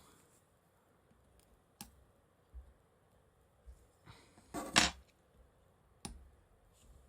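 A few light clicks and taps of small parts and tools handled on a workbench during phone reassembly, with a louder brief scraping rattle about four and a half seconds in.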